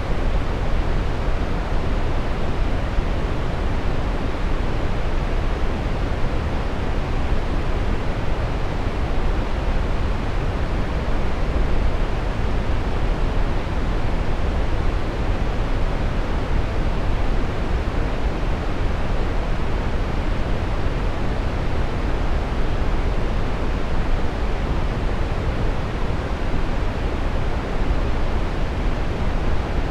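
Steady brown noise: a deep, even rushing hiss, strongest in the bass and dull at the top, unchanging throughout.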